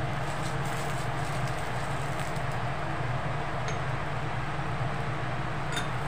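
Steady low hum with a hiss over it from a gas stove burner heating an aloo paratha on a hot iron tawa, with a couple of faint light clicks of a steel spoon against an oil bowl in the second half.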